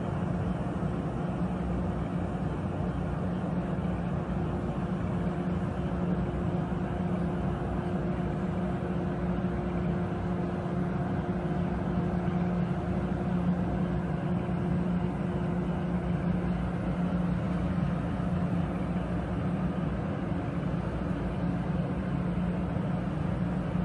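A JR 415-series electric train standing with its onboard electrical equipment running: a steady low hum with fainter steady higher tones over a constant noise.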